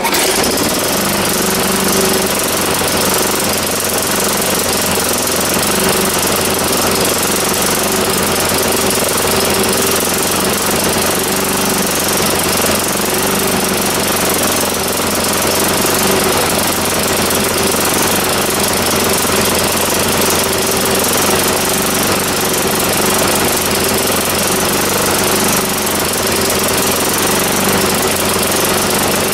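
Craftsman lawnmower's Tecumseh engine running steadily at a constant speed, its carburetor freshly cleaned out.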